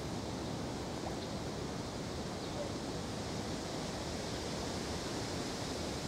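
Steady outdoor ambient noise, a wind-like hiss with no distinct events.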